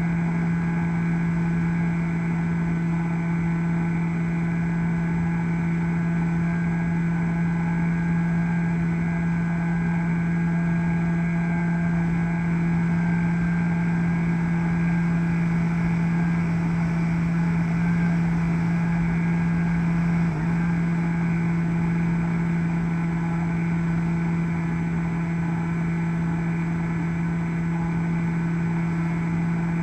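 A Bixler v1.1 model plane's electric pusher motor and propeller run at a steady pitch in cruising flight, heard through the camera in the plane's nose, with air rushing over the airframe.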